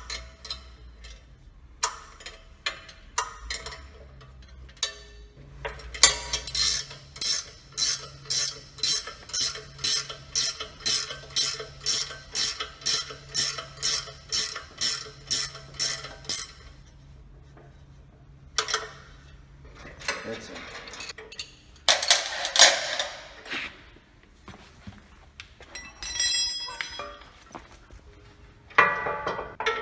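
Wrench work on the sawmill's blade hub: a steady run of metallic ratcheting strokes, about two a second for some ten seconds, as the blade nut is tightened. This is followed by a few scattered metal clanks and clatters.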